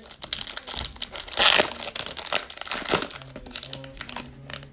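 Foil wrapper of a Bowman Chrome baseball card pack crinkling and crackling as it is handled and opened, loudest about a second and a half in and again near three seconds.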